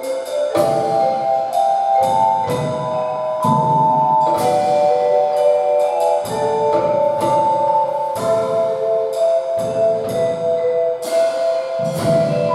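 Live instrumental music: a keyboard melody in long held notes over a drum kit, with repeated cymbal strokes.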